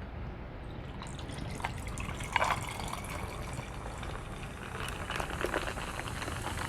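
Orange Crush soda poured and fizzing, a steady hiss of liquid and bubbles, with one louder knock about two and a half seconds in.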